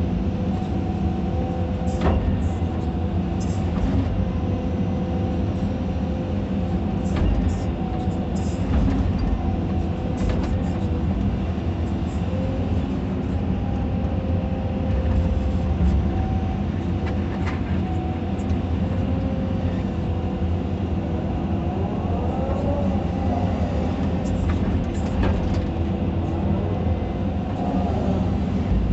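Caterpillar 320D2 hydraulic excavator working, heard from inside the cab: the diesel engine runs steadily under load with the hydraulics, and now and then short knocks and scrapes come from the toothed bucket digging into soil and stones.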